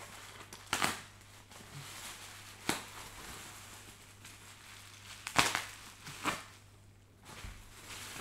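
Bubble-wrap packaging crinkling and rustling as it is pulled and unwrapped from a parcel by hand, with four sharp cracks spread through it.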